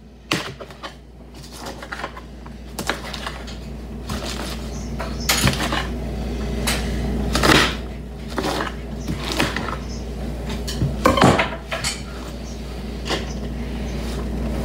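A kitchen knife chopping romaine lettuce on a cutting board in irregular knocks, then the cut leaves being gathered and moved by hand, with scattered clicks and taps.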